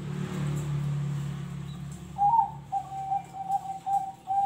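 Zebra dove (perkutut) cooing: a phrase of short, stepped notes that starts about halfway in. Before it, a low steady hum fades away over the first two seconds.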